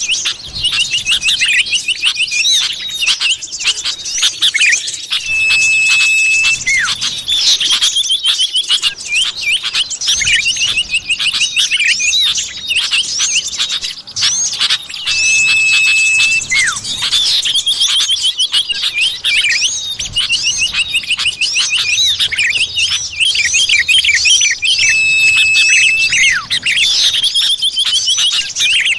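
Bird-luring recording of common iora (cipoh) calls: dense, rapid chirps and trills with a long level whistle about every ten seconds, the sequence repeating as a loop.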